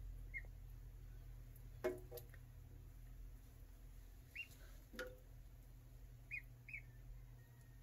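Ducklings paddling in a stainless-steel sink, giving a few faint short peeps. There are two light knocks against the steel, the first about two seconds in with a brief ring, all over a low steady hum.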